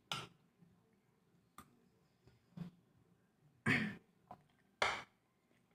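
Eating noises from someone eating rice and chicken with her hands: several short, separate mouth and breath sounds, with two louder ones past the middle.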